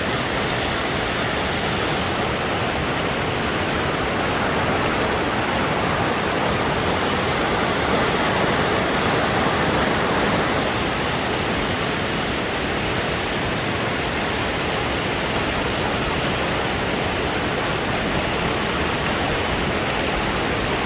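Ojang waterfall's water falling and splashing into its pool, a steady, unbroken rush.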